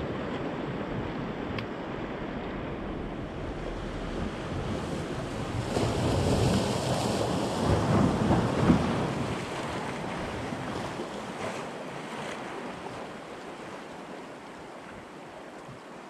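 Surf breaking and washing up on a beach, with wind on the microphone. The wash swells louder about six seconds in, peaks near nine seconds, then eases off.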